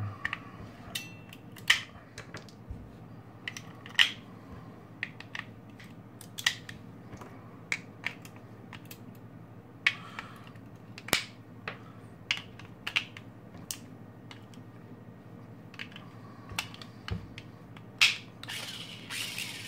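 AAA batteries being pressed one by one into a plastic battery holder, with scattered clicks and taps of the cells snapping against the metal contacts and plastic, and handling noise.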